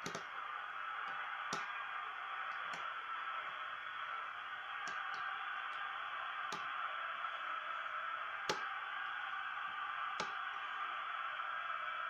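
Lock pick working the pins of a brass pin-tumbler cylinder lock held under tension: scattered sharp metallic clicks several seconds apart, the loudest about two-thirds through, over a steady hiss.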